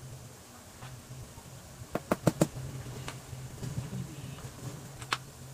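Sharp clicks from hand work on a chair seat being re-upholstered with foam: a quick run of four about two seconds in, then a single one near the end, over a steady low hum.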